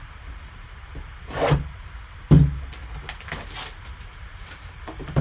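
Gloved hands handling a shrink-wrapped trading-card box: plastic wrap rustling and crinkling, with one sharp knock a little over two seconds in as something is set down on the table.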